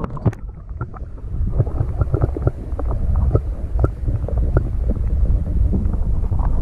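Water against a camera microphone held under the lake surface: a muffled low rumble with many irregular small clicks and knocks.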